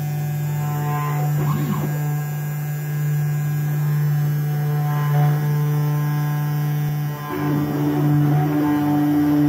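500 W ER11 CNC spindle motor running at high speed with a steady electric hum, while the machine's stepper motors whine, rising and falling in pitch as the head moves into position to start a V-carve. About seven seconds in, a higher steady tone joins the hum.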